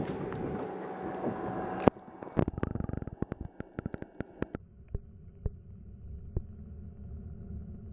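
Water and wind rushing above the surface, cut off sharply about two seconds in by a muffled, underwater sound full of bubbly clicks and crackles. About halfway through it settles into a steady underwater hum with several fixed tones from a running 3700 GPH 12-volt bilge pump driving the kayak, with an occasional click.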